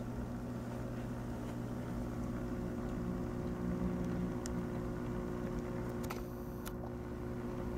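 Steady low electrical hum from running aquarium equipment, with a short, soft rustle about six seconds in.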